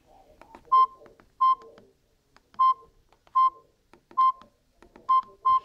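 Samsung GT-E1200 mobile phone keypad beeping as its buttons are pressed: seven short beeps, all at the same pitch and irregularly spaced, the last two close together, each with a faint click of the key.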